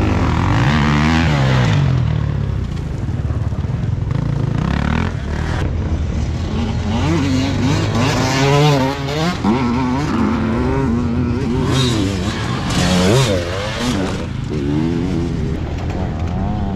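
Enduro dirt bike engines revving as bikes ride past on the track, the pitch rising and falling again and again as the riders work the throttle.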